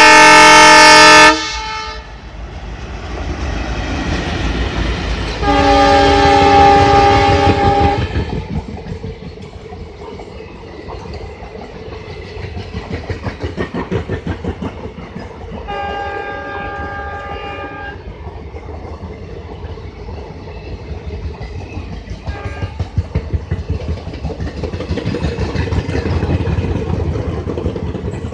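Indian Railways diesel locomotive horns: a very loud multi-tone blast at the start, a second long blast about six seconds in and a fainter one about sixteen seconds in. Between and after them, express coaches roll past with a rhythmic clickety-clack of wheels over rail joints and a low rumble.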